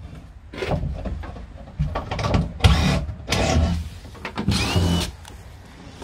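Power drill driving screws into a plywood dog house roof in several short bursts, with a brief rising whine from the motor near the end.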